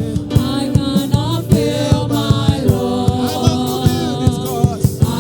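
Worship music with a steady beat and held keyboard chords, with a voice chanting or singing over it.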